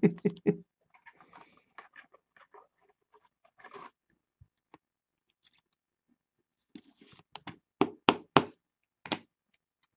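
Trading cards and plastic card holders being handled on a table: faint scuffing and rustling, then a quick run of about six sharp knocks as they are tapped and set down.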